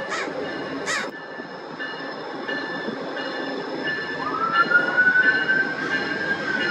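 VIA Rail GE P42DC locomotive 903 and its passenger cars drawing into the station with a steady high squeal from the wheels and brakes. A louder squeal rises about four seconds in and begins to fall near the end. A crow caws twice in the first second.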